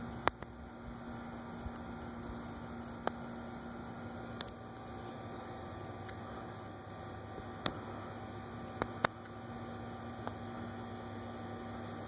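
A steady low hum with a faint, even tone, broken by a few scattered faint clicks.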